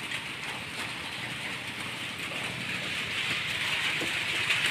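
Steady rain falling, an even hiss that grows a little louder near the end.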